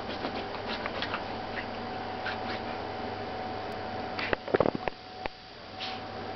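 Yorkshire terrier nosing and scratching at a bedsheet to bury a snack: the fabric rustles and scratches in short, uneven bursts, with a louder flurry about four and a half seconds in. A steady faint hum runs underneath.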